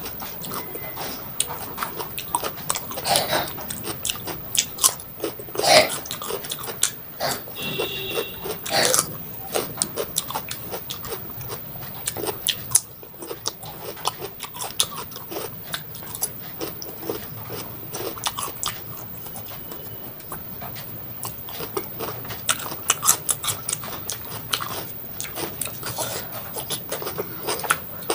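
Close-miked crunchy biting and wet chewing of raw cucumber, a steady run of irregular crisp crackles.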